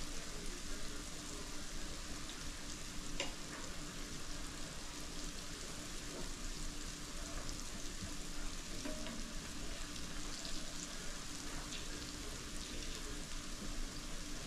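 Flour-coated squash strips frying in oil in a pot with the heat turned down: a steady sizzle, with a few light clicks as a fork turns them.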